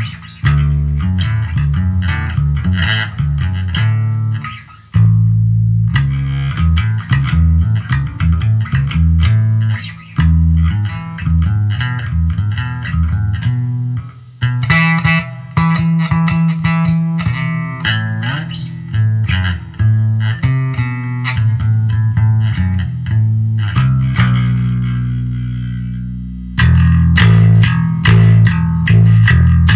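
Ibanez SR370E electric bass played through a Sound City Master Lead 50 amp: a continuous run of plucked notes and riffs with a strong low end. Late on, one held note rings out and fades before the playing picks up again.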